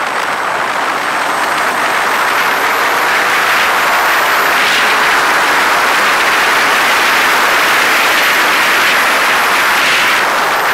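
Ducati 848 L-twin sportbike running at speed on a racetrack, heard as a loud, steady rush of wind and engine noise; it swells a little after about two seconds and eases slightly near the end.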